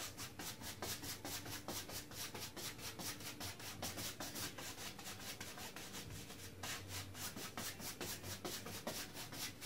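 Wide flat paintbrush scrubbing back and forth across a stretched canvas, a dry scratchy brushing at about four strokes a second, with a short pause about six seconds in.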